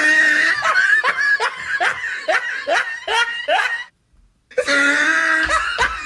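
A person laughing hard, a fast run of high-pitched "ha" pulses about three a second. It cuts off abruptly a little under four seconds in, leaving about half a second of silence, then the laughing starts again.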